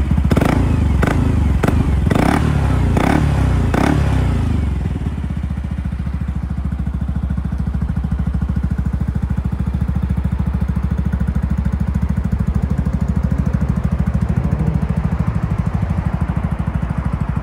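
Yamaha NMAX 125 scooter's single-cylinder engine running through an aftermarket muffler. It is blipped up and down several times in quick succession over the first four seconds or so, then settles to a steady idle.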